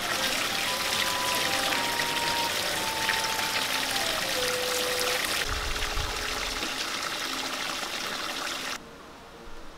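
A stream of water pouring from a pipe into a full basin, splashing steadily, then cutting off suddenly near the end.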